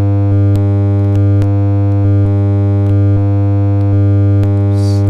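A low sine test tone run through an op-amp boost circuit that is clipping it, heard as a steady buzzy tone thick with overtones. Sharp clicks come about eight times as the clipping diodes are switched, each one shifting the tone's loudness and colour slightly: single-diode, asymmetrical clipping on one half of the wave or the other.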